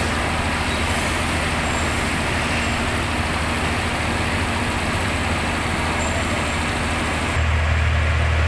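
Heavy diesel engine running steadily, a low drone with hiss over it, which turns into a louder, deeper hum about seven seconds in.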